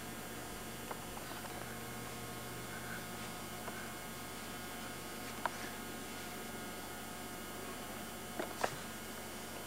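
Steady low electrical hum with faint hiss, broken by a few soft clicks, the loudest pair near the end.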